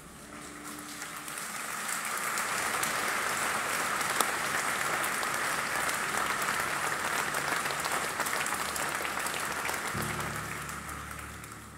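Audience applauding, swelling up over the first couple of seconds, holding steady, then dying away near the end.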